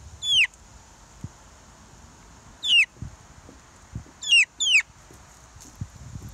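A six-week-old chick peeping: four high peeps that slide down in pitch, one near the start, one about two and a half seconds in, and two in quick succession about four and a half seconds in.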